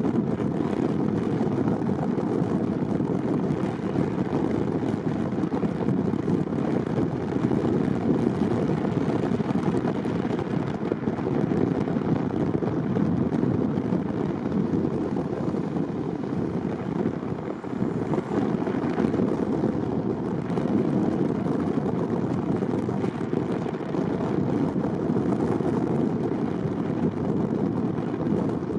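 A car driving along, with a steady rumble of road and engine noise that dips briefly about two-thirds of the way through.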